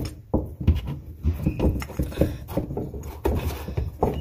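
Irregular knocks, taps and scrapes of hands and needle-nose pliers working against the wooden side panel of a cabinet, fumbling to grip a screw anchor behind it.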